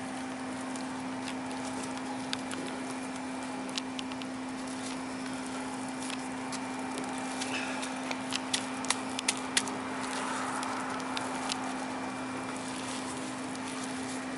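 Clear plastic film crinkling and crackling in short, scattered clicks as it is wrapped and pressed around a patched pipe, with a soft rustle about two-thirds of the way through, over a steady low hum.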